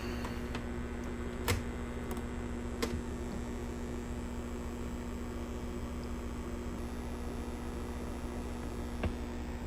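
Steady electrical hum with a layer of hiss, broken by three short sharp clicks: one about a second and a half in, one about three seconds in, and one near the end.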